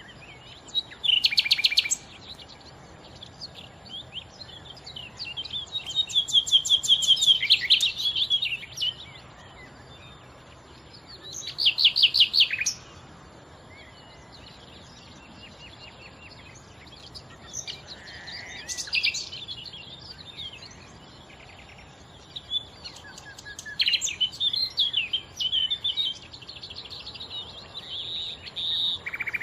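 Nightingale singing: separate phrases of rapid repeated notes and warbled runs, each a second or three long, with pauses of a few seconds between them.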